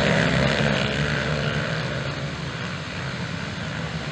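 A pack of motocross bikes running hard together, many engines blending into one drone that gradually fades as they pull away.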